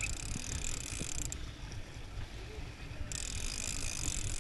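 Shimano big-game fishing reel being cranked, its gears whirring in two spells of winding: one at the start lasting about a second, and one starting about three seconds in. The angler is retrieving line on a hooked small tuna, over a steady low rumble.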